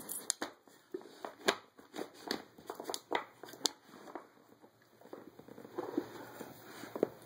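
A dog pawing and nosing at a wooden treat-puzzle toy: a handful of sharp, irregular clicks and knocks from the wooden pegs and board, then softer scraping and rustling near the end as the toy is shoved about.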